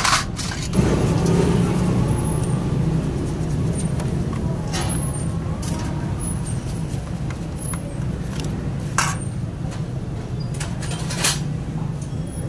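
Steady low mechanical rumble, with a few sharp metallic clicks and clinks of hand tools on motorcycle engine parts.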